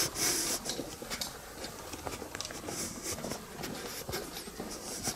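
Footsteps on a gravel footpath at a steady walking pace.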